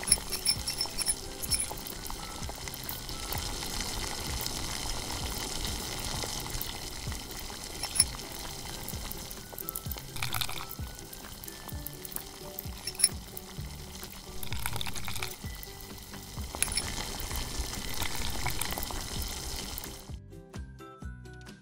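Sugar syrup sizzling and being stirred in a miniature wok, then thick syrup drizzled from a small spoon over tapioca pearls, under light background music. There are two sharp clicks along the way. The cooking sounds stop suddenly near the end, leaving only the music.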